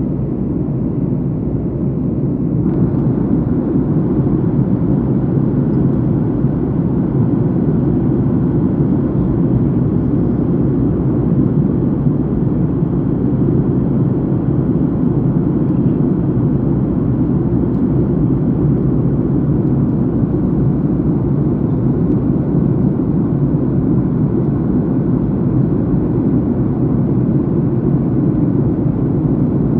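Steady low rush of an airliner's jet engines and airflow, heard inside the passenger cabin in flight; it turns a little brighter about three seconds in.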